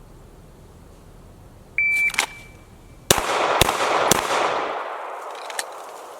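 A shot timer beeps once, then about a second later a handgun fires three shots roughly half a second apart, each followed by a fading echo. They are a timed 15-yard string of three rounds from the draw, finished in 2.34 seconds from the beep.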